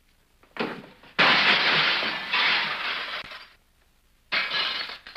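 A loud crash with a clatter of breaking, lasting about two seconds after a brief first burst; a second, shorter crash comes near the end.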